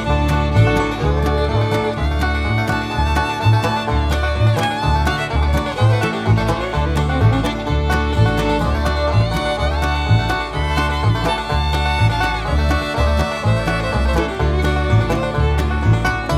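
Upbeat bluegrass music with banjo, fiddle and guitar over a steady bass beat.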